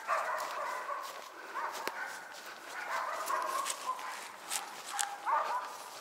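Hunting laika dogs barking repeatedly and steadily, several barks overlapping: a laika's bay at found game, here a marten hunt.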